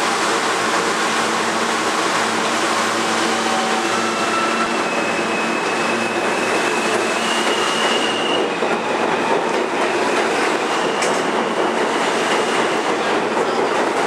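Alstom-built R160A-2 New York City subway train pulling out of an underground station and picking up speed, a steady loud noise of the cars running over the rails. Low steady tones in the first few seconds give way to thin high whining tones through the middle.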